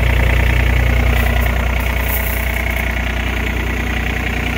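Komatsu PC30-5 mini excavator's diesel engine idling steadily.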